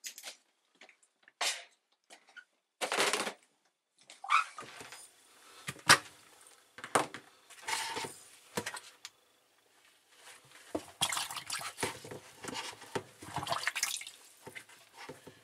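A few short knocks of plastic dishwasher parts being handled. Then, from about four seconds in, standing water sloshes and drips in a Bosch slimline dishwasher's sump as a hand stirs in it. The water is left behind after an E15 leak fault.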